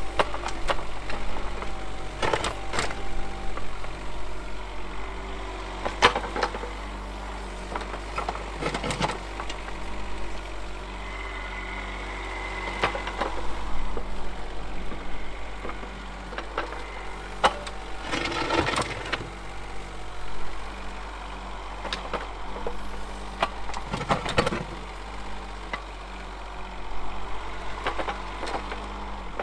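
Kubota U10-3 mini excavator's three-cylinder diesel engine running steadily, with intermittent clunks and knocks from the machine and its bucket as it works, clearing snow.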